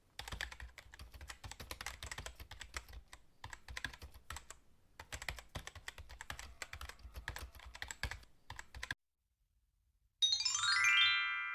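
Typing on a computer keyboard: bursts of quick clicks with short pauses, stopping abruptly. After about a second of silence comes a quick descending run of bell-like chime notes that keep ringing as they fade.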